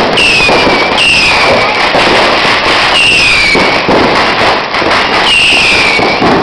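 Firecrackers and fireworks going off in a dense, continuous crackling barrage, loud throughout. A short falling whistle repeats every second or two over it.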